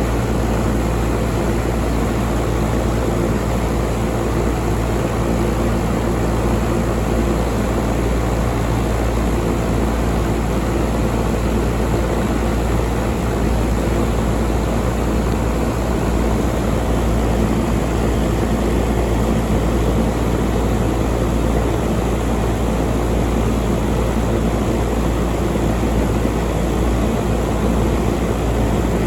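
York 5-ton air conditioner running steadily: a low, even hum under a constant rush of fan noise.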